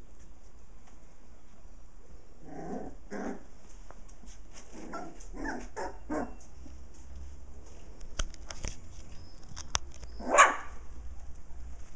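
Puppies barking and yipping at play: a string of about six short barks, a few sharp clicks, then one louder bark near the end.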